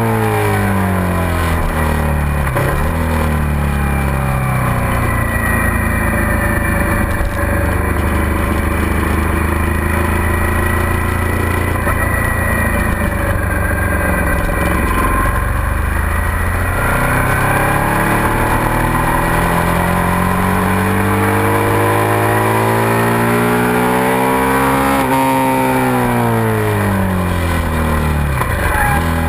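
2007 Suzuki SV650's V-twin engine at full song on a racetrack, heard from the bike itself. The engine note falls over the first couple of seconds as the bike slows, holds fairly steady for several seconds, climbs through a long pull from about the middle, then drops away near the end as the bike slows for a corner.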